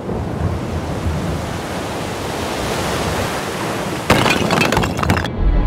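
Cartoon sound effects: a steady rushing noise like strong wind, then about four seconds in a sudden loud crash with breaking and clattering for about a second, followed by a deep rumble.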